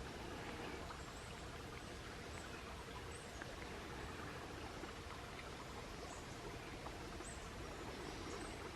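Faint outdoor woodland ambience: a steady low hiss with a few brief, faint high-pitched chirps scattered through it.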